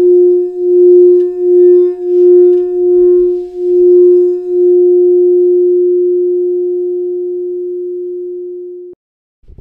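A single steady ringing tone with one higher overtone. It swells and fades about six times, then holds one long note that slowly dies away and cuts off suddenly near the end.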